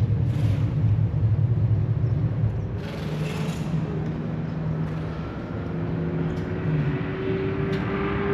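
Race car engines running on the circuit: a steady low rumble, then one engine note rising slowly in pitch over the last couple of seconds as a car accelerates.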